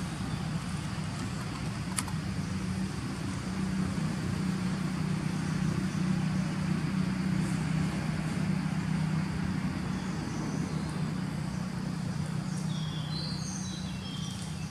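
A low, steady motor-vehicle engine hum that grows louder toward the middle and then eases off, with a few short bird chirps near the end.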